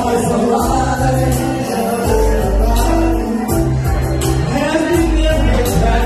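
Loud music with a heavy bass line and singing voices over it, from singers performing into handheld microphones through a sound system.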